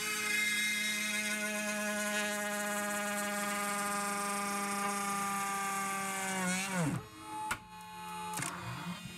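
CNC router spindle whining as an end mill cuts a slot in aluminium sheet dry, with a hiss of cutting over it. Its pitch sags slowly as the cut loads it, then drops steeply about two-thirds of the way through as the spindle bogs down. A low hum and a few sharp clicks follow.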